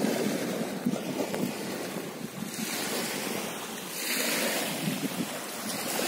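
Small surf waves of the Sea of Azov washing onto a sand-and-shell beach: a steady rushing hiss, swelling briefly about four seconds in.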